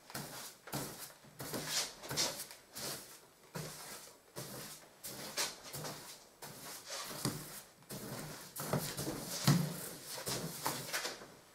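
Wide pasting brush swishing wallpaper paste onto lining paper on a pasting table, in repeated strokes of about two a second, with a louder knock about nine and a half seconds in.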